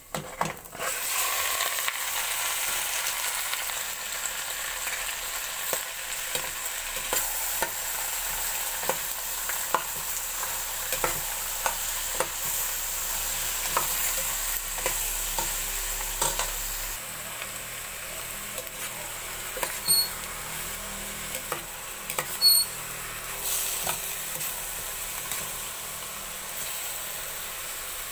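Chopped pork tipped into hot oil over sautéed onions and garlic in a stainless steel pot. It sizzles loudly at once, then fries with a steady sizzle while a utensil stirs and scrapes against the pot, with many small clicks. The sizzle eases in the second half, and two ringing metal clinks stand out.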